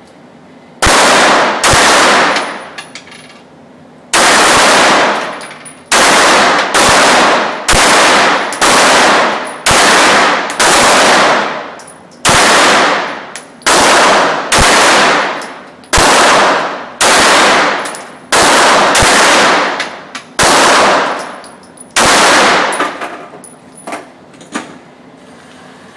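Glock 19 9mm pistol fired in slow succession: about twenty shots, roughly one a second, with a pause of about two seconds after the first two, each shot trailing off in echo.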